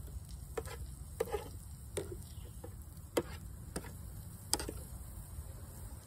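A metal fork stirring tomato sauce in a frying pan, scraping and clinking against the pan in irregular strokes, over a steady low rumble.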